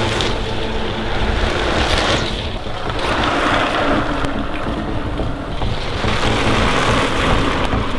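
Wind rushing over the microphone of a camera riding on a mountain bike at speed, swelling and easing several times.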